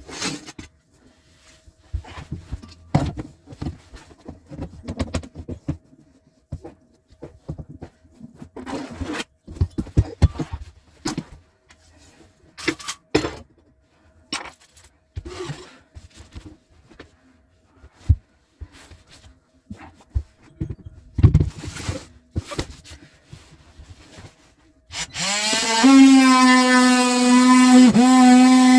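Irregular knocks, taps and scrapes, spaced out with quiet gaps between them. About 25 seconds in, a motor starts with a brief rising whine and settles into a loud steady hum.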